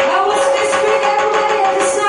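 Recorded music playing, with steady held notes over a light beat.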